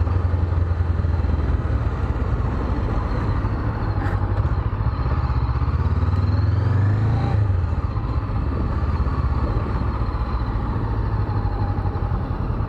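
Honda CB500X parallel-twin engine running under way, with wind noise on the microphone; the engine note rises briefly about seven seconds in, then drops back.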